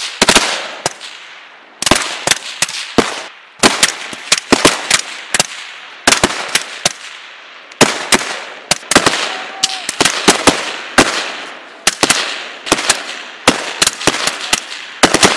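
Suppressed rifles firing from several shooters at once: irregular volleys of sharp shots in quick clusters every second or two, each followed by a fading echo.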